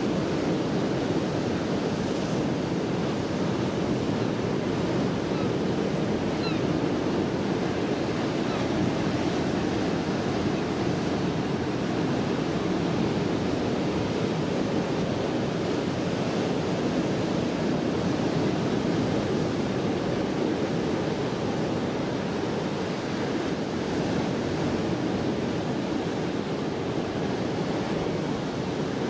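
Sea surf breaking and washing in among the boulders of a rocky shore: a steady, continuous rushing.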